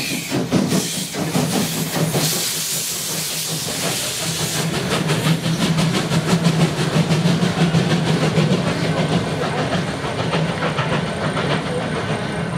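Steam locomotive passing: a loud hiss of escaping steam for the first few seconds, then a rapid, regular chuffing as it runs by, over a steady low hum.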